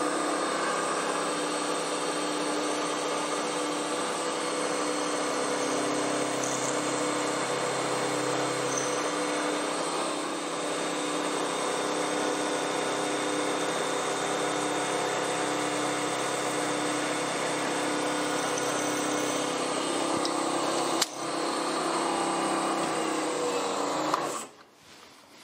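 Milling machine spindle running at raised speed, its 2 mm end mill cutting the back of the insert pocket in a steel lathe parting blade: a steady, even whine with cutting noise. There is a single sharp click about 21 seconds in, and the machine stops shortly before the end.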